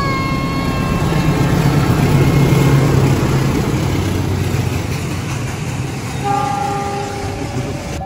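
GE CC 201 diesel-electric locomotives passing close by: the tail of a long multi-tone horn chord fades out over the first couple of seconds, under a heavy diesel engine rumble and the rolling noise of the train.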